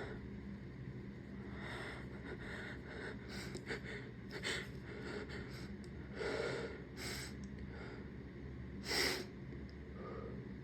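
A person sniffing and taking short sharp breaths through the nose while tickling it to bring on a sneeze, with one short, louder burst of breath about nine seconds in.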